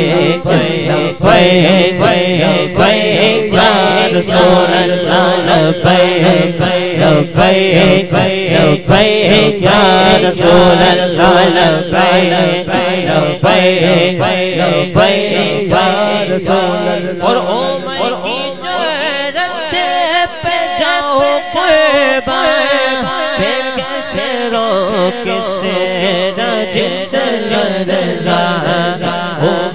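Devotional Urdu kalam (naat) sung by male voices into microphones, with a group chanting along in a steady, regular rhythm.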